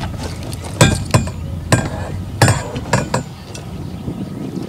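A series of sharp knocks and metallic clinks, about six in two and a half seconds, from fishing gear (rod, reel and landing net) being handled and knocked against a kayak.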